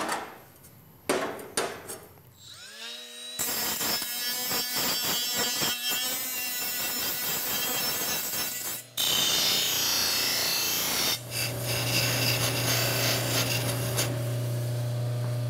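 A right-angle die grinder spins up with a rising whine, then grinds and deburrs the edges of a plasma-cut sheet-metal plate. After a break, a Baldor bench buffer runs with a steady low hum while the plate is cleaned up on its abrasive wheel. A few light metal clinks come first as the plate is lifted off the table.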